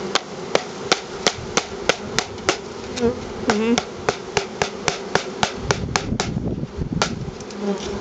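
Sharp knocks, about three a second, on a screened wooden bee package held over a hive, knocking the remaining honeybees down onto the frames. A swarm of honeybees buzzes throughout. The knocking pauses briefly a little after six seconds in.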